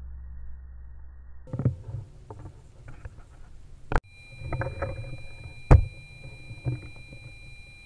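A low hum fades out, then knocks and bumps of handling a rifle with a scope-mounted camera. A sharp click comes about four seconds in, and a single louder sharp knock follows about a second and a half later.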